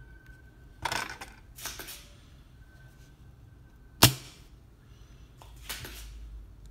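Spring-loaded desoldering pump (solder sucker) fired once about four seconds in, a single sharp snap as it sucks molten solder off a joint on a PS4 controller board. Shorter rustling swishes come around one, two and six seconds.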